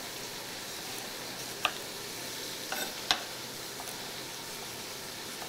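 Minced meat sizzling steadily as it fries in oil, with a few sharp knife taps on a wooden cutting board as tomatoes are diced, the loudest about three seconds in.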